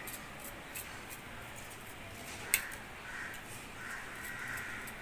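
Paneer being grated on a flat stainless-steel hand grater: light, repeated scraping strokes, with one sharp click about two and a half seconds in.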